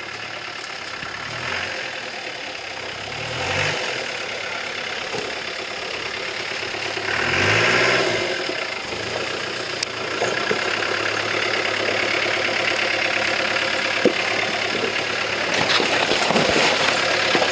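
Off-road 4x4's engine running at low revs while crawling down a rocky slope, revved up briefly three times.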